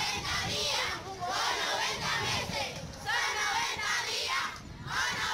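A crowd of protest marchers, adults and schoolchildren, chanting slogans together in short repeated phrases, with brief pauses between them.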